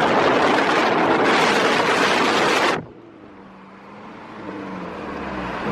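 Car on the move with a loud, even rushing noise that cuts off suddenly about three seconds in; then a faint engine hum with a wavering pitch, growing louder toward the end. The car is a Scion tC freshly fitted with a short ram intake.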